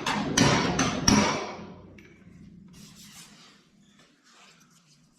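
Hammer-and-dolly blows on the sheet-steel fender of a 1969 Mustang Boss 302, bumping out low spots of oil canning: about four sharp, ringing metal strikes in the first second or so, then faint rubbing and scuffing.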